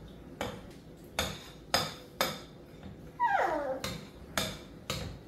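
Metal spoon knocking and scraping against a bowl of chocolate mousse, a string of sharp clinks about every half second. A short falling whine is heard a little over three seconds in.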